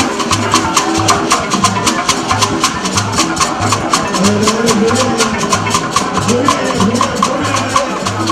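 Music with a steady, quick beat: shaker-like ticks about four to five times a second over a pulsing bass, with a melody gliding up and down about halfway through.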